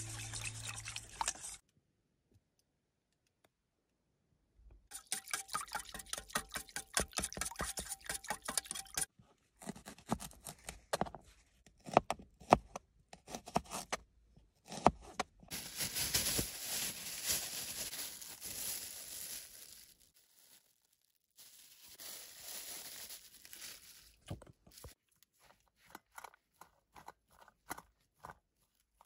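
Hand food preparation in short bouts: batter mixed in a stainless steel bowl, a dull, cheap knife chopping green onion on a plastic cutting board with irregular clicks and taps, and chopped vegetables stirred in a metal bowl. Guitar music stops about a second in, and a brief near-silent gap follows.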